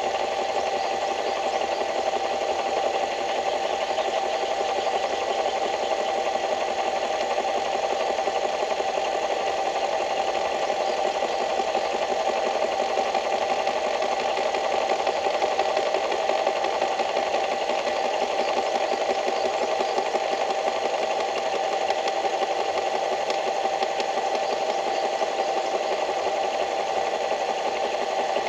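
A small engine running steadily with a fast, even rattle and a steady hum.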